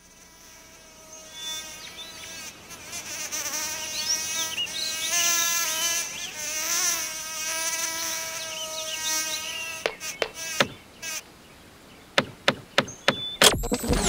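Bee buzzing sound effect: a droning buzz that swells over the first few seconds and wavers up and down in pitch, fading out about ten seconds in. A run of sharp clicks follows near the end.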